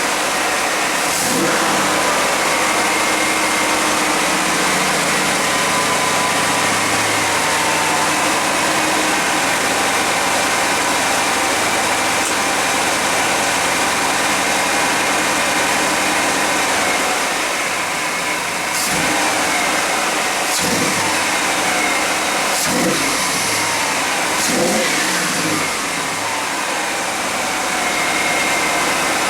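1991 GMC Jimmy's engine running, which is suspected of a vacuum leak. Its speed rises and falls a little throughout, and it is briefly blipped a few times in the second half.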